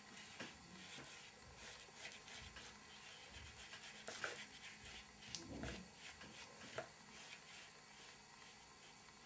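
Faint scratchy rubbing of a paintbrush stroking paint over a papier-mâché shape, with a few soft taps and a low knock in the middle.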